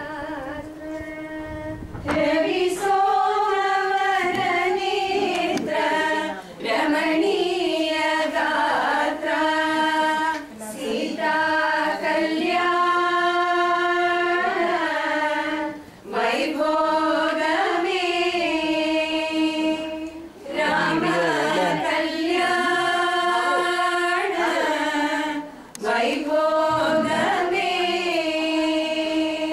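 A group of women singing a song together without instruments, in long held phrases separated by short breaks for breath.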